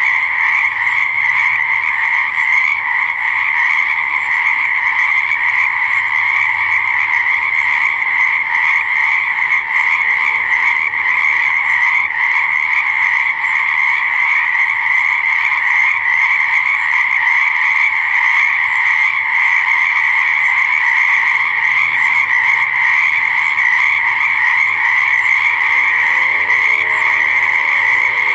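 A dense chorus of many frogs croaking together, an even, unbroken wall of overlapping calls. Fainter, lower-pitched calls come in now and then.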